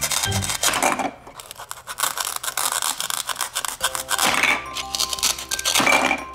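Velcro on plastic toy fruit ripping apart three times as a toy knife splits the halves: about a second in, after about four seconds, and near the end. Background music plays throughout.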